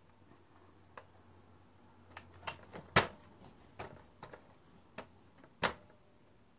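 Irregular clicks and knocks of hard plastic as a baby slaps and presses the buttons of a plastic activity table toy, about ten taps, the loudest about three seconds in and another a second before the end.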